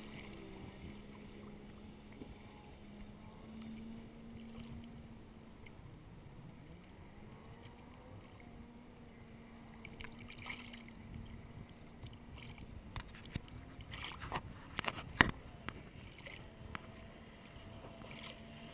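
Distant jet ski engine droning steadily, its pitch dipping and rising a little with the throttle. A few small splashes and knocks of water come in the second half.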